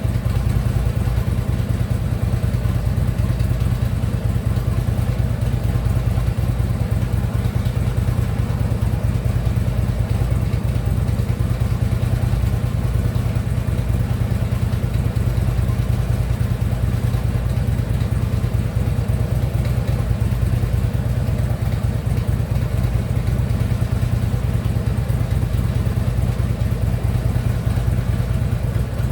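Harley-Davidson Ultra Limited V-twin engine idling steadily, with a slight knock from the lower end that the owner cannot yet place. The new compensator itself is quiet.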